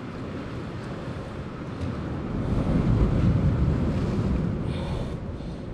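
Wind buffeting the microphone: a low rumble that swells about halfway through and eases off near the end.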